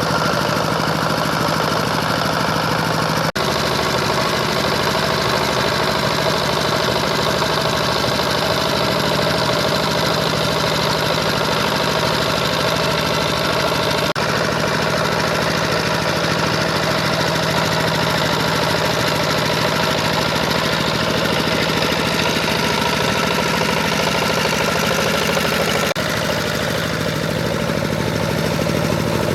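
Power tiller engine running steadily while ploughing a muddy paddy field, with momentary dropouts about 3, 14 and 26 seconds in.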